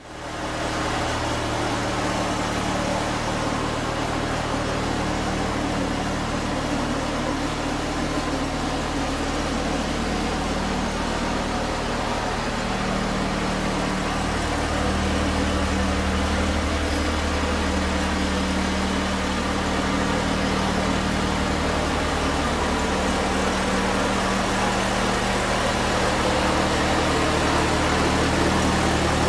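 Briggs & Stratton opposed-twin flathead engine on a modified MTD riding mower running steadily, getting a little louder about halfway through.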